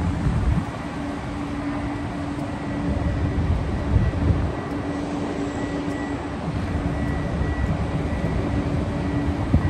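Wind buffeting the microphone in irregular low gusts, over a steady low hum.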